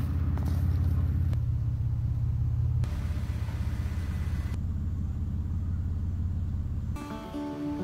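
Low, steady rumble of a car passing close by, broken by a few abrupt cuts. Acoustic guitar strumming starts near the end.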